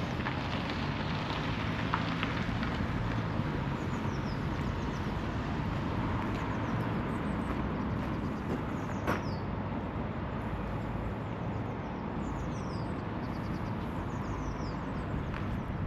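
City street traffic: steady vehicle and tyre noise with a low engine hum that fades after about ten seconds. A few faint, high, quickly falling chirps come through in the second half.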